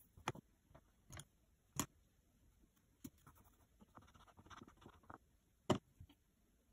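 Clear acrylic sheet clicking and tapping against a cutting mat a few times, with a soft rubbing stretch in the middle as it rolls a thin strand of polymer clay. The sharpest click comes near the end.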